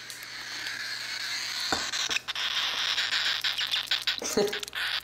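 Baby cockatiel begging for food with a continuous hissing call: the hunger call of an unweaned chick at hand-feeding. A run of short clicks comes in the second half.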